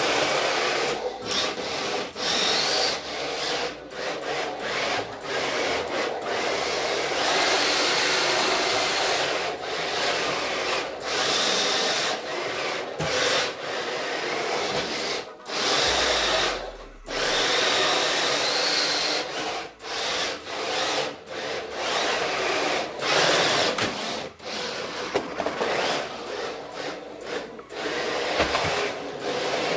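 Electric 1:10-scale RC drift car with four-wheel drive and a driveshaft, driven on a wooden floor: a very loud whirring and scrubbing that cuts in and out over and over with the throttle. Its motor whine rises in pitch a few times.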